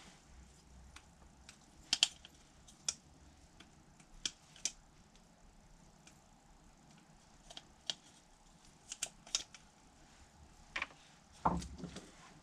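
Light, scattered clicks and taps of a plastic fuel filter housing cap being handled, about ten in all, with a duller knock near the end.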